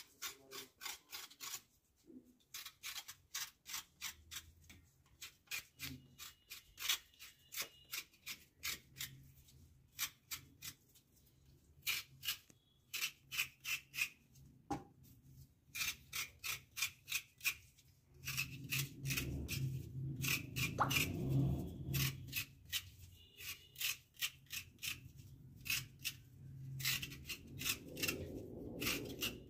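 Hands working a dry flour coating onto chicken pieces: quick, repeated rasping strokes, about three a second, with short pauses between runs. A low rumble joins in for a few seconds past the middle.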